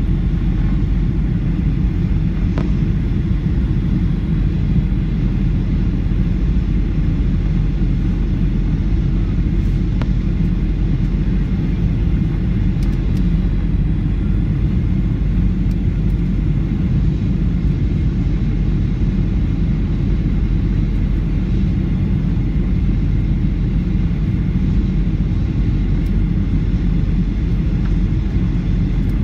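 Steady low rumble of a Boeing 737's engines and rushing air, heard from inside the passenger cabin on final approach.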